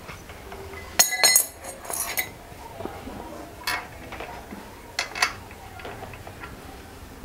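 A flat steel pedal spanner clinking against a bicycle pedal's axle as the pedal is fitted and tightened into the crank arm. There is one loud, ringing metal clink about a second in, followed by several lighter clinks.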